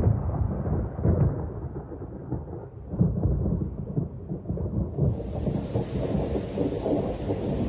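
Thunder rumbling in rolling surges, with heavy rain starting to hiss about five seconds in.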